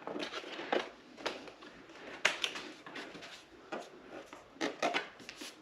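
Irregular light clicks, taps and rustles of hands handling and moving motorcycle parts, about a dozen sharp ticks spread unevenly.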